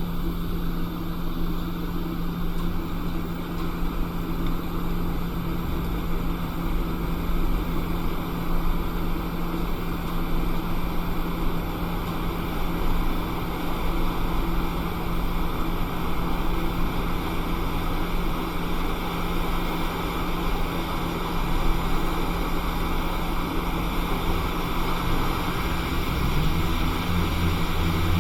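Hot air rework station blowing steadily onto an iPhone logic board to reflow a Tristar charging chip: an even rush of air over a constant fan hum, with a deeper rumble coming in near the end.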